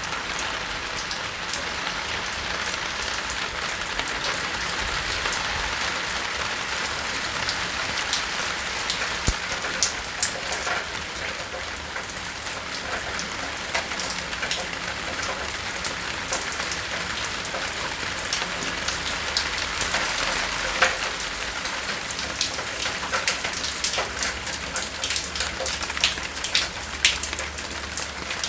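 Steady rain falling on a roof, a window and plant leaves, with many separate drops ticking sharply on hard surfaces, more of them in the second half.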